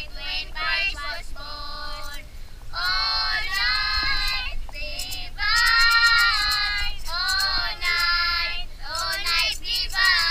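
Children singing together in high voices, phrase after phrase with short breaths between, with some notes held and some sliding.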